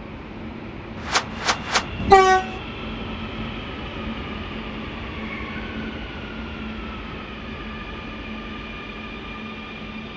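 Metro train pulling into an underground station: three sharp clicks and a short horn toot about two seconds in, then the electric traction motors whine, falling in pitch as the train brakes.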